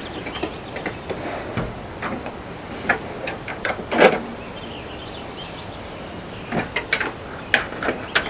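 Black bear's claws and paws knocking and scraping against the rear of a pickup truck and its canopy. The clicks and knocks are scattered; the loudest comes about four seconds in, and there is a cluster near the end. A steady hiss runs underneath.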